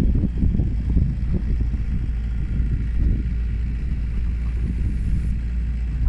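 A small fishing boat's engine running steadily as the boat moves across the water, with wind buffeting the microphone in an uneven low rumble.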